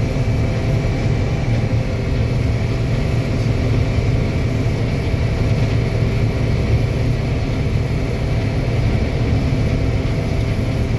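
Combine harvester running steadily while harvesting corn, heard from inside the cab: a constant low engine drone with the even hum of the machinery over it.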